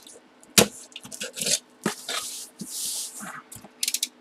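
A knife blade slicing the packing tape along a cardboard box's seam, with scraping of the blade and sharp knocks and rubs as the box is handled and turned. A longer hissing slice comes around three seconds in.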